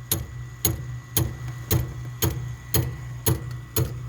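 Harman Advance pellet stove clicking steadily, about two clicks a second, over a low steady hum. The clicking comes while the auger does not turn.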